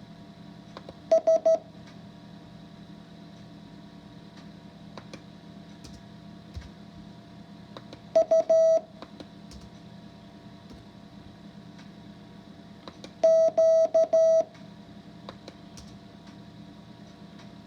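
Morse code practice tones: a single steady mid-pitched beep keyed into short dots and dashes, sent as three separate characters with long pauses between. The first comes about a second in, the next about eight seconds in, and a longer one about thirteen seconds in. A constant low hum runs underneath.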